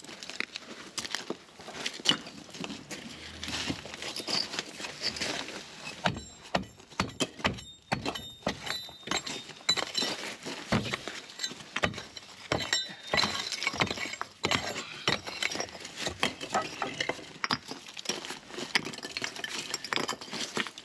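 Irregular clinks, knocks and cracks of broken concrete slab and rubble being levered and dug out, with chunks knocking against each other. There is no steady hammering of a running breaker.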